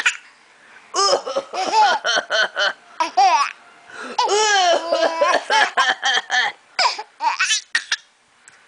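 A young child giggling in repeated bursts of high-pitched laughter, with short gaps between the bursts.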